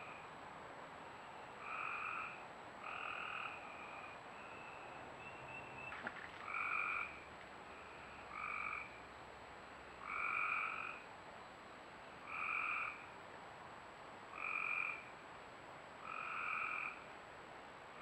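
Frogs calling at a creek: one frog gives short calls of about half a second to a second, roughly every two seconds, with fainter calls of other frogs between them. A brief click about six seconds in.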